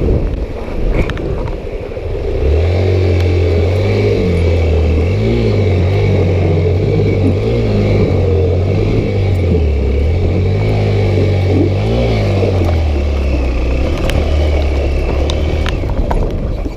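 A vehicle engine running at low revs, its note stepping up and down, over a steady rushing background.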